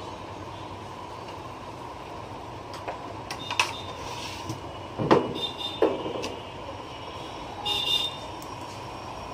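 Knocks and clicks from the plastic and metal frame of a partly dismantled laser printer being handled and tipped over, the loudest knock about five seconds in, followed by a short scraping rattle. A steady background noise with a faint high hum runs under it.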